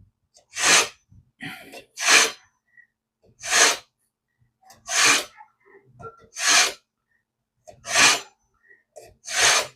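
A knife blade drawn again and again through the ceramic polishing slot of a MasterChef pull-through knife sharpener: seven short, hissing scrapes about a second and a half apart. This is the final polishing stage that hones the edge.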